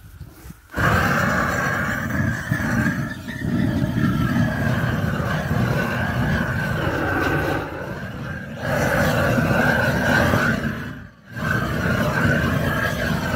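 Blowtorch flame running with a loud, steady rush while scorching out the inside of a wooden beehive to kill pests such as moth larvae. It cuts in under a second in, drops out briefly near the end, then starts again.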